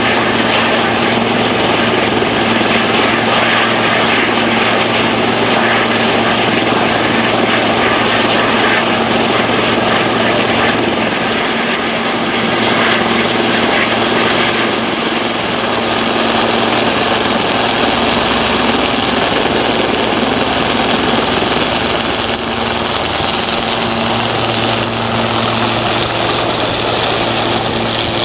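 Helicopter running on the deck with rotors turning: a loud, steady rushing noise with a constant low hum under it.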